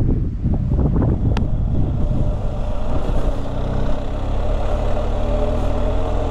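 Wind buffeting the microphone, then about three seconds in a BMW R 1250 GS boxer-twin engine running at a steady idle.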